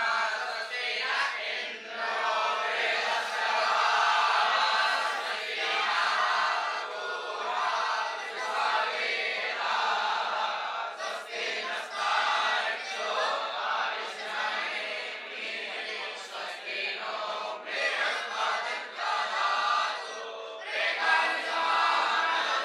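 A group of young Vedic students chanting Sanskrit mantras together, many boys' voices in unison.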